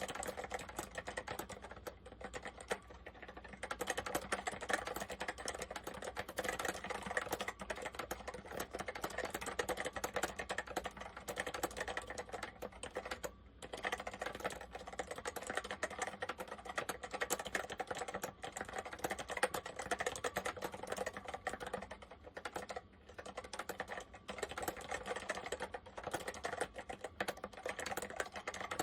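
Continuous fast typing on an Apple M0110A Macintosh Plus keyboard with Mitsumi standard mechanical switches: a dense run of key clicks with brief pauses a few times.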